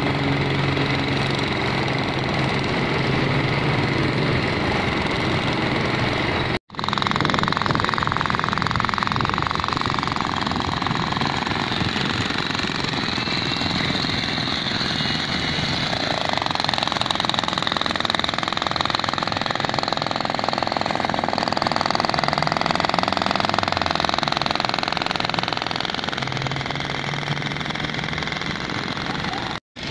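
Corded electric demolition hammer breaking up road asphalt, a dense, rapid hammering, with a small portable generator running under it. The hammering cuts off for an instant about seven seconds in and again near the end.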